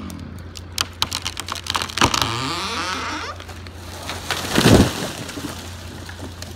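A big poplar tree cut by chainsaw giving way: the chainsaw's engine dies away at the start, then the trunk cracks and pops in a quick string of snaps. About four and a half seconds in the tree crashes to the ground, the loudest sound.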